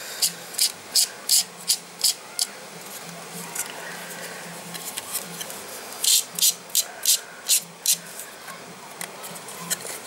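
Background music with a fast, regular hissing beat, about three strokes a second, over a pulsing low note; the beat drops out for a few seconds in the middle, then comes back.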